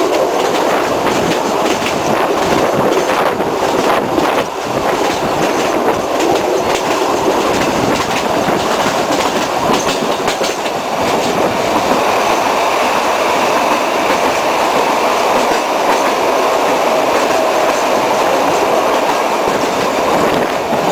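Wooden carriage of the Sóller narrow-gauge railway running at speed, heard at an open window: a steady rumble of the train with the clickety-clack of wheels over rail joints. A faint high squeal of the wheels comes in about halfway through.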